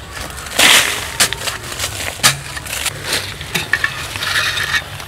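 Small metal hoe blade digging into a burrow in dry, crumbly soil: a series of irregular scrapes and crunches of metal through earth, the longest about half a second in.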